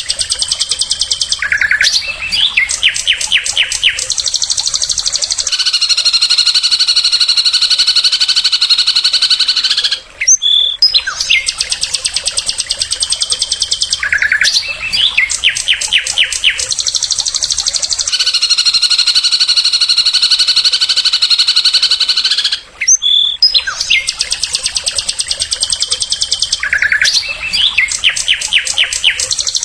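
Songbird song, loud and high-pitched: a rapid trill of evenly spaced notes followed by a long, steady buzzy whistle of several seconds. The same phrase sequence repeats exactly about every 12 seconds, a recording looped, with a brief break before each repeat.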